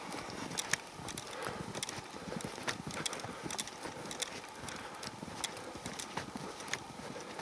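Footsteps crunching in snow at an even walking pace, about two steps a second, over a faint steady rush.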